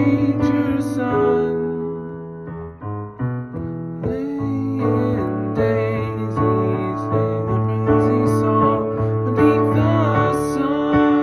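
Music: a keyboard playing held chords over a sustained low note.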